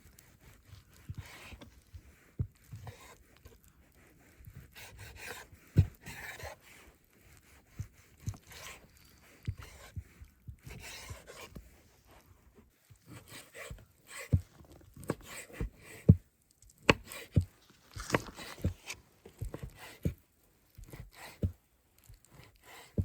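Scattered, irregular knocks, taps and scraping or rubbing from hands handling cooking gear and food.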